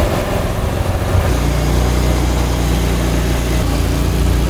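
Boat motor running as the boat moves across the water. The engine note changes about a second in, then holds steady.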